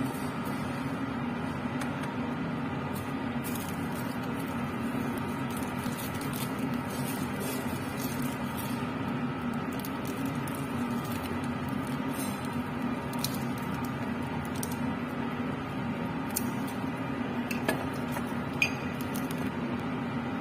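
Laminar air flow cabinet's blower running with a steady hum and rush of air, with light clicks of things being handled on the steel worktop and a couple of sharper clicks near the end.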